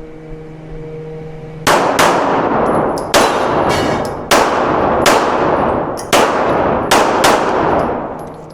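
A semi-automatic handgun firing about nine shots, several in quick pairs, each shot followed by a long echoing decay.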